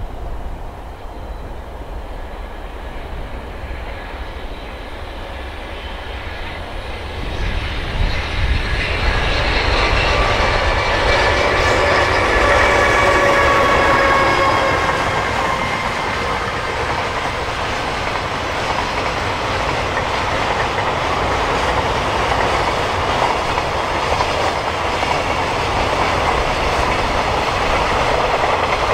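A JR Freight EH500 electric locomotive hauling a freight train past at speed. The rumble swells from about seven seconds in and is loudest in the middle, with a faint whine falling slightly in pitch. A steady rumble and clatter of freight wagons rolling by follows.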